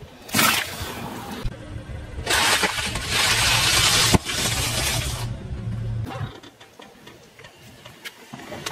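A car's engine running low as its tyre rolls slowly over objects and crushes them, with rough crunching noise and one sharp crack about four seconds in. Quieter near the end.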